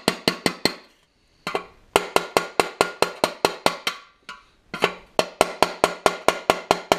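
Small steel body hammer tapping a punch held against a dented stainless-steel hubcap, bumping out a dent. Even, ringing metallic taps at about five a second, in three runs with two short pauses.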